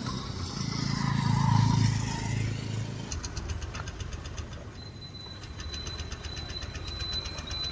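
Scooter engine being cranked over without catching: a louder low churning for the first few seconds, then steady rapid ticking at about five a second. The scooter has run out of petrol.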